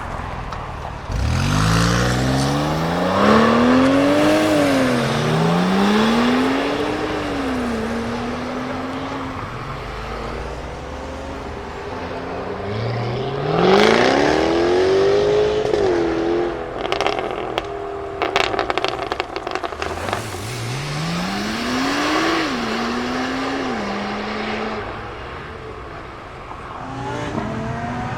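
Supercars accelerating hard, one after another. Three times the engine note climbs and drops back at upshifts, and in the middle comes a rapid string of exhaust pops and crackles.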